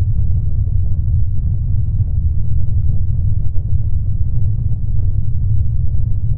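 Ship's engine rumble: a steady, deep drone with no distinct knocks or horn blasts.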